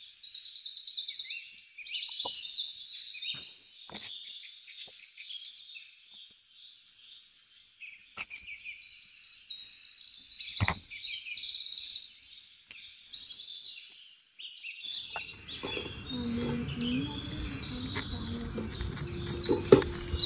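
Songbirds chirping and singing steadily, many quick overlapping calls and trills. A few faint clicks, and about three-quarters of the way through a steady rushing noise joins in under the birdsong.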